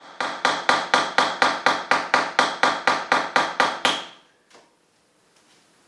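Hammer driving a nail into a wall: about sixteen quick, even blows at roughly four a second, each with a short ring, stopping about four seconds in, followed by one faint knock.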